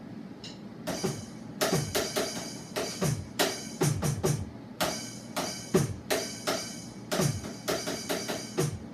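Electronic drum sounds played as a beat: after a quiet first second, quick runs of sharp snare-like hits and low tom-like booms that drop in pitch after each stroke.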